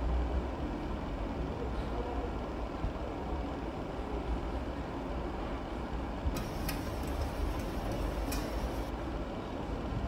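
Plastic bottles crackling briefly as they are picked up and sorted by hand, twice, about six and a half and eight seconds in, over a steady low background rumble.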